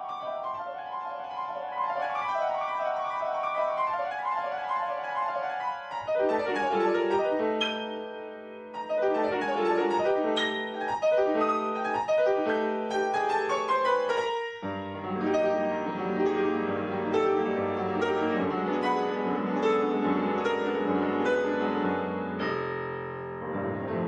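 Grand piano played solo with many quick notes. The first six seconds stay in the upper-middle register, then the playing moves down into the middle and low notes, and from about halfway it fills out with deep bass notes under the melody.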